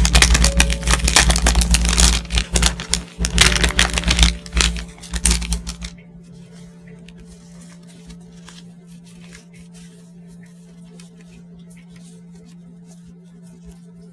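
Clear plastic wrapper on a pack of paper stickers being crinkled and pulled off, a dense run of sharp crackles that stops about six seconds in. After that comes softer, fainter rustling as the die-cut paper stickers are handled.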